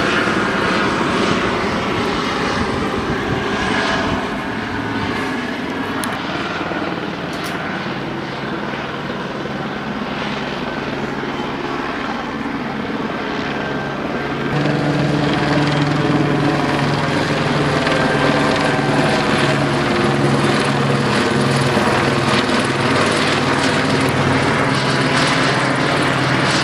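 LAPD Airbus AS350 helicopter circling overhead, its rotor thudding steadily along with the turbine. The sound grows louder about halfway through as the helicopter comes nearer.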